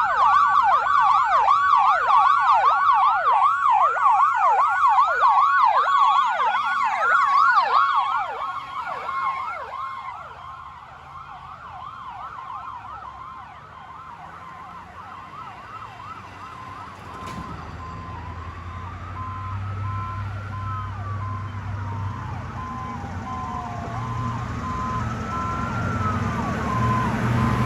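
Federal Signal PowerCall electronic siren sounding a fast yelp, about two and a half sweeps a second over a steady tone, which fades away over the first ten seconds. From about eighteen seconds in, a slow rising-and-falling wail comes up with a low engine rumble, growing louder toward the end.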